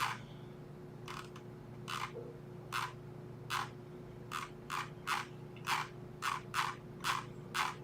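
About a dozen short, quick scrapes, spaced under a second apart and coming closer together in the second half, over a steady low electrical hum.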